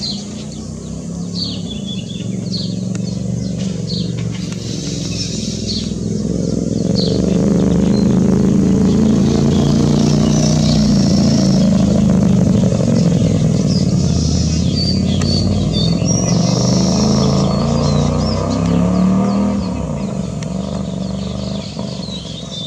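A motor vehicle's engine passes by: it grows louder over several seconds, holds, then fades near the end. Small birds chirp briefly and repeatedly above it throughout.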